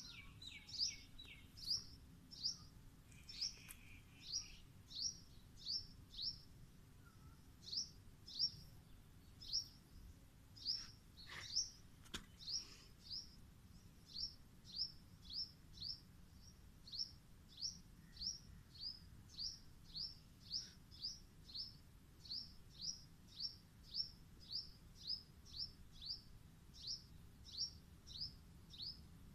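A bird calling over and over with one short, high, downward-slurred note about every half second, with brief pauses, and a few other chirps in the first seconds.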